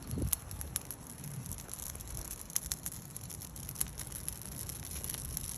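Fire of burning paper crackling, with scattered irregular snaps over a steady hiss.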